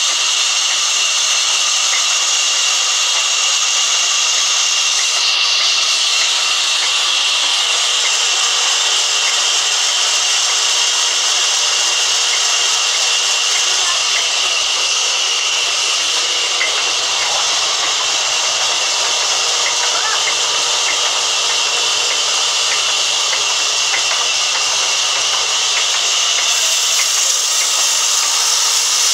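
Sawmill band saw running steadily and cutting through a log, a continuous high rushing noise of the blade in the wood.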